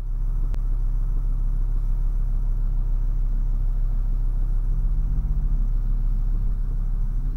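Sports car engine running at low speed, a steady low rumble, its pitched engine note growing clearer about two-thirds of the way in. A single faint click about half a second in.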